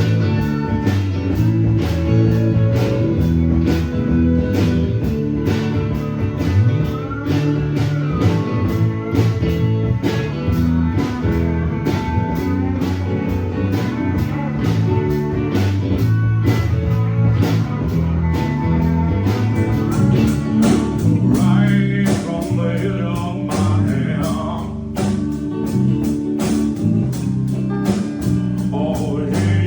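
A band playing a blues-rock song with guitar prominent and a steady beat; a voice begins singing over it about two-thirds of the way through.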